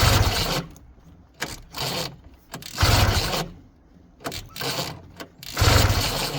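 1971 Ski-Doo Olympic snowmobile being pull-started by its recoil rope starter. There are three hard pulls about three seconds apart, each turning the engine over with a rumbling whirr, and the engine does not catch and run between them. The engine has just been primed with fuel down the carburetor.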